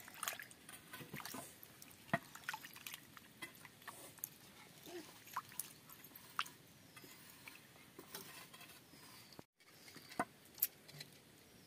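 Hands washing pieces of small snakehead fish in water in an iron kadai: faint sloshing and dripping with scattered light clicks as the pieces are handled and lifted out.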